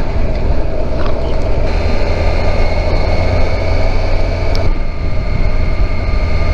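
Kawasaki Versys 1000 SE motorcycle's inline-four engine running steadily, its note shifting slightly about two seconds in and again near five seconds.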